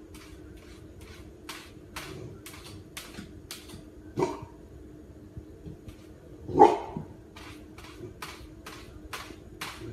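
Golden retriever puppy pawing at a white refrigerator door, its paw scratching and tapping the door about twice a second. It gives two short barks, one a little past the middle and a louder one about two-thirds of the way in. A steady low hum runs underneath.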